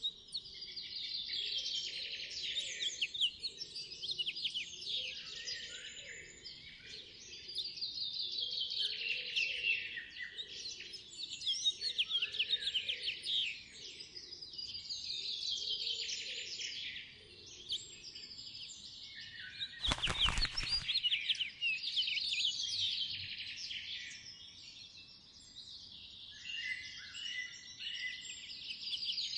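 A songbird singing a long warbling phrase again and again, about every four seconds, with a brief burst of noise about two-thirds of the way through.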